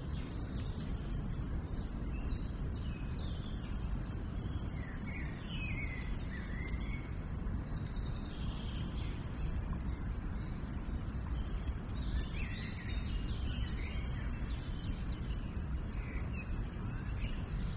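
Birds chirping on and off over a steady low, noisy background.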